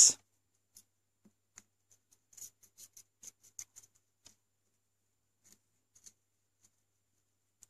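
Faint crackling and sizzling of flux as a hot soldering iron heats flux-soaked copper shield braid on a solder joint and the braid wicks up the melting solder. A cluster of crackles comes about two and a half to four seconds in, with a few more ticks later.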